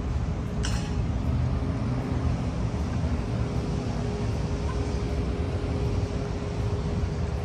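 Steady low vehicle rumble with a faint steady hum, and a brief sharp noise just under a second in.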